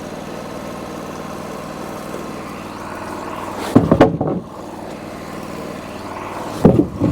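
Wood-Mizer LT40 sawmill's 26.5 hp G28 engine idling steadily with the band stopped, with two loud clunks about four and seven seconds in.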